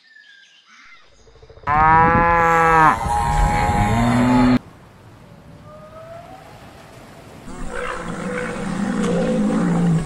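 A run of large-animal calls. Starting about two seconds in, a loud, deep, drawn-out call lasts roughly three seconds in two parts, the second rising in pitch. Faint gliding whistles follow, and near the end comes a rougher, noisier call.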